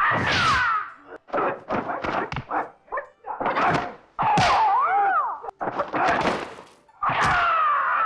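Kung-fu film fight sound: a quick run of punch and kick impact effects, some of them with short shouted battle cries that swoop in pitch.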